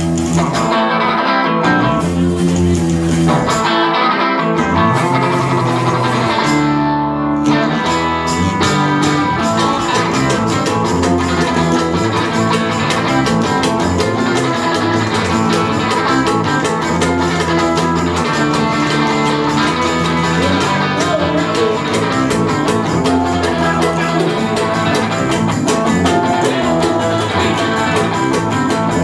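A live cowpunk band playing the opening of a song on guitars. A few separate chords come first, then about eight seconds in the full band comes in with fast, steady strumming.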